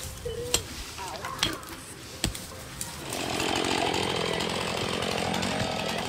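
Small axe chopping into roots in the ground: three sharp strikes in the first half. From about halfway there is instead a chainsaw running steadily.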